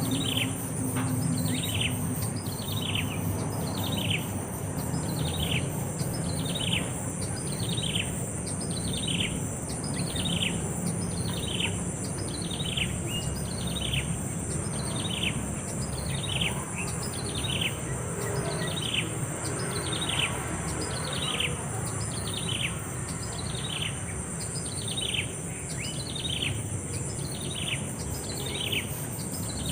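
A bird calling over and over, each call a single note sliding quickly downward in pitch, repeated evenly at about one call every three-quarters of a second, with a steady high-pitched drone behind it.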